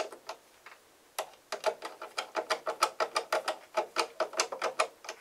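Screwdriver snugging down the screws of a model airplane's adjustable engine mount: a quick, even run of small ticking clicks, several a second, starting about a second in.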